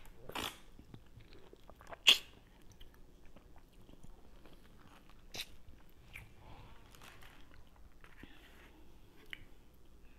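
Close-miked biting into and chewing juicy pink grapefruit wedges, with wet mouth sounds between the bites. The sharpest, loudest bite comes about two seconds in, with softer ones near the middle and near the end.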